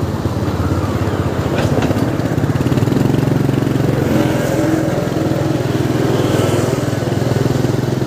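Motorcycle engine running at a steady pace while under way, a steady hum with road and wind noise.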